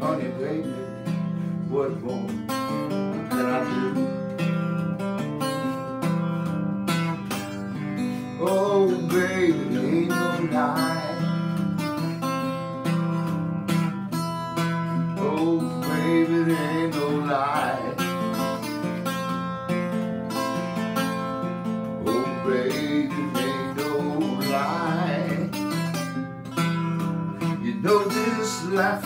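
Acoustic guitar played in a country blues style, with a bass line moving steadily under the melody. A man's voice comes in over it in stretches.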